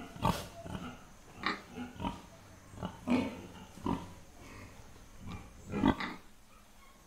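Stock pig sound effect: a pig grunting in a series of short calls spaced about a second apart, with the loudest near the start, the middle and the end.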